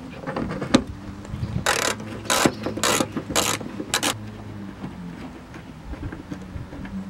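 Ratchet wrench with a 10 mm socket undoing a screw in a car's wheel-arch lining: about six short runs of pawl clicking in quick succession, roughly half a second apart, over a steady low hum.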